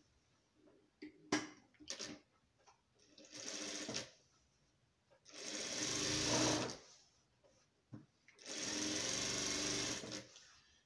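Industrial sewing machine stitching a fabric strip onto a patchwork rug in three short runs, each one to two seconds long with pauses between. A few sharp clicks come before the first run.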